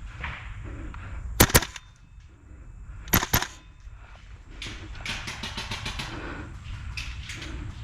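Gas blowback airsoft rifle, a Tokyo Marui MWS, firing: two sharp shots in quick succession about a second and a half in, then another quick pair or three about three seconds in. Fainter, rapid clicking follows through the second half.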